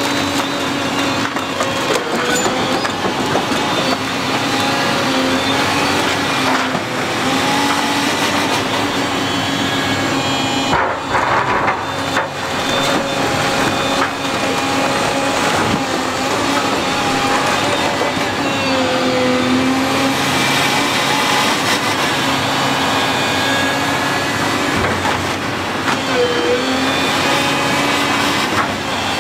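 SANY SY365C LC hydraulic excavator's diesel engine running steadily under load, its pitch dipping and recovering as the hydraulics work. The bucket tears into the roof and brick wall, with cracking of wood and debris falling, and a few sharp knocks near the middle.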